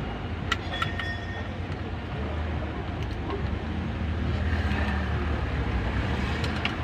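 Low, steady rumble of vehicle traffic that grows a little louder after about two seconds. About half a second to a second in come a few light metallic clinks from a ratchet wrench working on the timing belt's auto tensioner.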